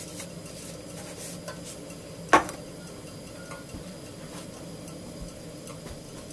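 Dishes and cutlery clinking lightly at a meal, with one sharper clink about two and a half seconds in.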